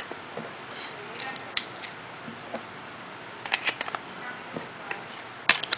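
Small plastic clicks and taps of a Samsung Galaxy Beam phone being handled as its SIM card and battery are fitted, with a cluster of clicks past the middle and the sharpest clicks near the end.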